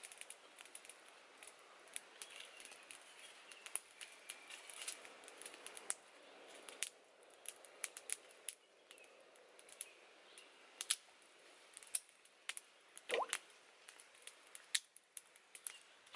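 Small wood fire crackling, with irregular sharp pops and snaps over a faint hiss.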